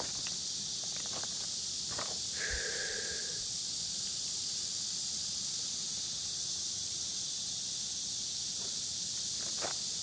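Steady high-pitched insect chorus hissing through the summer heat, with a few footsteps crunching on loose river stones. A brief high note sounds about two and a half seconds in.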